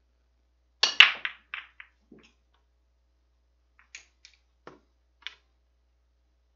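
A 9-ball break shot on a pool table. The cue strikes the cue ball, which cracks into the rack about a second in, loudest here, followed by a quick rattle of ball-on-ball clicks and a low knock. A few separate clicks of balls colliding come as they roll out over the next few seconds.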